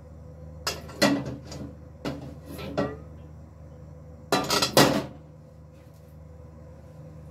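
Metal non-stick wok clattering and scraping against the gas stove's pan grate as it is lifted, swirled to spread the oil, and set back down: three bursts of knocks, the loudest about four and a half seconds in, over a steady low hum.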